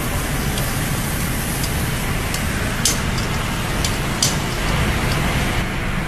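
Commercial steak grill running: a loud, steady rushing noise of the grill and kitchen with steaks cooking on the grate. A few sharp clicks stand out, the clearest about three and about four seconds in.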